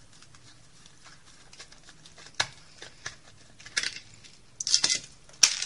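Screwdriver working the small screw out of a plastic telephone socket's cover: scattered clicks and scrapes of metal on the screw head and plastic, busier near the end, with a sharp click just before the end.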